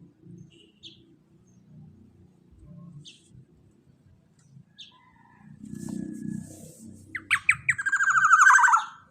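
Black-naped oriole (kepodang emas) calling: scattered short chirps, then near the end a loud, harsh, rapidly pulsed call that falls in pitch, over a low background rumble.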